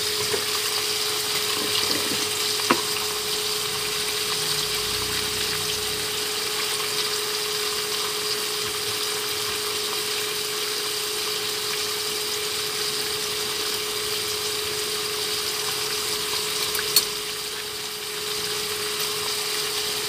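Marinated chicken giblets and beef tendon sizzling and simmering in their juices in a frying pan on an induction cooktop: an even bubbling hiss with a steady hum underneath and two light clicks.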